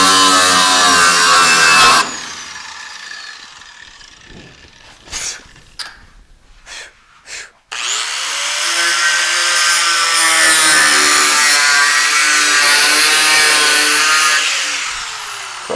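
Electric angle grinder cutting through the metal seam of a welded-on fender skirt, its motor whining under load. It stops about two seconds in and winds down, with a few short knocks. It starts again near eight seconds in, cuts steadily, then winds down near the end.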